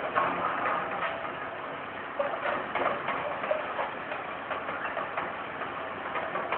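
Excavator working on demolition: its engine runs with a steady whine under irregular knocks and clatter as the bucket breaks up a masonry wall and rubble falls.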